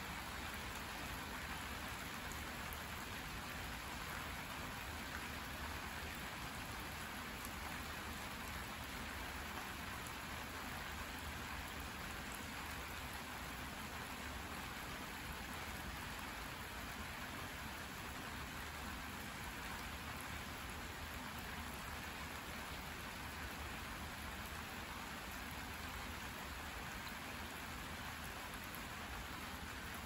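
Steady rain falling on garden plants and wet ground, an even hiss with no breaks.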